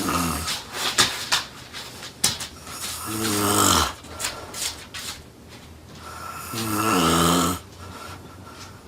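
A woman snoring loudly, one long snore about every three seconds, with noisy breathing between.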